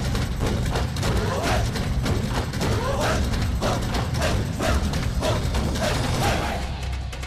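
Large Chinese barrel drums and tom-toms beaten together in a fast, dense stream of strokes, easing off slightly near the end.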